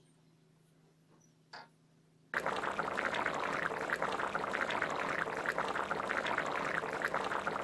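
Rajma curry, kidney beans in a watery tomato-onion gravy, boiling hard in an open kadai on high flame: a dense bubbling and popping that starts suddenly about two seconds in. Before that, near silence with a faint click.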